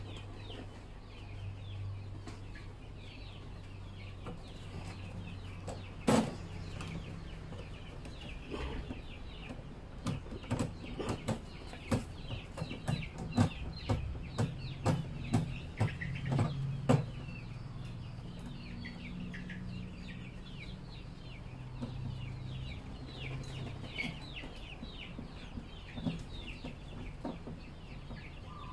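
Sharp clicks and knocks of a metal hand tool working a bolt through the lid of a plastic drum, one loud knock about six seconds in and a quick cluster in the middle. Birds chirp and cluck throughout, over a low steady hum.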